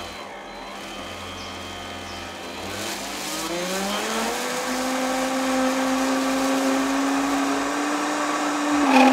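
Countertop blender motor puréeing a thick cream of asparagus and melted cheese. It starts at a lower speed, rises in pitch to a higher speed about three to four seconds in, and then holds a steady whine that grows louder near the end.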